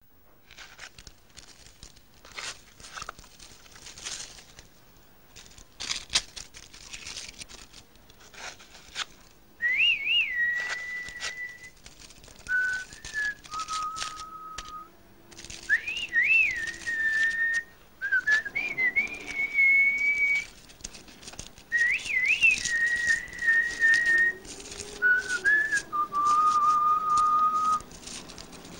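Paper and loose tobacco crinkling and rustling as a cigarette is rolled by hand. From about ten seconds in, a whistled tune takes over: clear single notes in phrases, with quick slides and turns between held notes.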